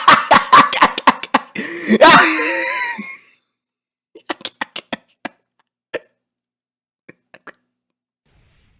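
A man's voice in rapid bursts of laughter or coughing that break into a strained, drawn-out groan and die away about three seconds in. A few short scattered clicks follow.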